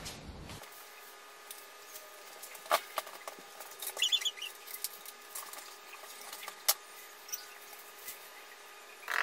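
Scattered light clicks and rustling from a sequin backdrop being handled and hung on a wall, with a few sharper ticks among them, over a faint steady hum.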